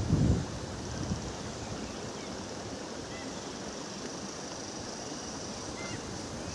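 Outdoor nature ambience: a steady rushing noise, with wind buffeting the microphone at the very start and a few faint, short, high chirps.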